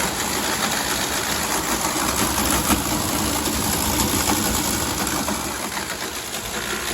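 Frigidaire FFTH102WA2 wall air conditioner running with a loud, steady churning noise threaded with fine rapid ticking, which the owner puts down to its fan working through water that has filled the unit's base.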